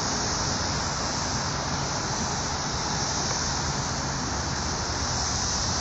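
Chorus of 17-year periodical cicadas: a steady, unbroken high-pitched whirring drone, with an uneven low rumble underneath.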